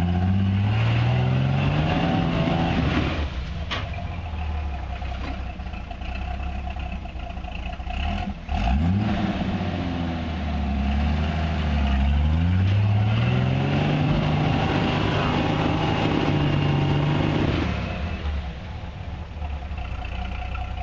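Off-road 4x4's engine revving up and down several times as it tries to climb a steep rock ledge without getting up it, ending in a long held rev that drops off near the end. A couple of sharp knocks come through partway in.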